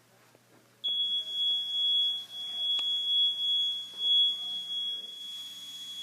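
Small electronic buzzer wired into a squishy (play-dough) circuit, sounding one steady high-pitched tone that switches on suddenly about a second in, its loudness wavering, with a light click midway.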